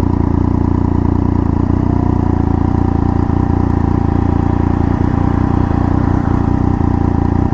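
Triumph Daytona 675's three-cylinder engine running at a steady pitch while riding, without any revving up or down.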